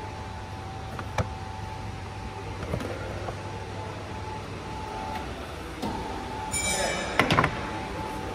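Plastic engine cover being pulled off a Toyota 2AR-FE engine: a sharp click about a second in and another near three seconds. Near the end comes a scraping rattle, then a few loud knocks as the cover is put down, over a steady hum.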